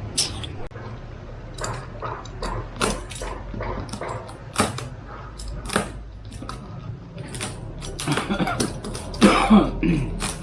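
Unboxing a portable speaker's packaging: irregular clicks, scrapes and rustles of the box and its contents being opened and handled, busiest and loudest near the end.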